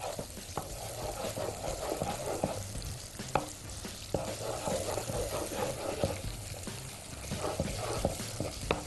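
Wooden spoon stirring and scraping around a pot of melted sugar as a cube of butter melts into it, sizzling, for a caramel sauce; irregular scrapes with a sharper knock about three and a half seconds in.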